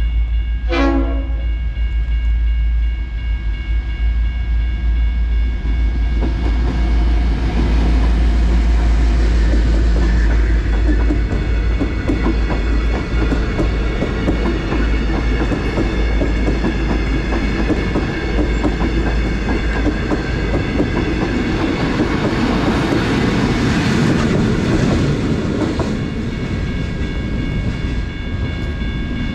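V/Line H class passenger train passing over a level crossing: a steady low rumble with a dense clatter of wheels over the rails through the middle and later part, under steady high ringing from the crossing's warning bells. A brief falling tone sounds about a second in.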